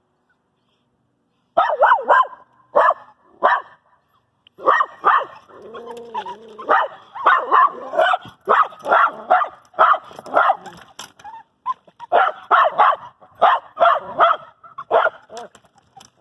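Dog barking and yipping in quick runs of short barks that begin about a second and a half in, with a brief whine about six seconds in, set off by a freshly caught fish being lifted from the water beside the boat.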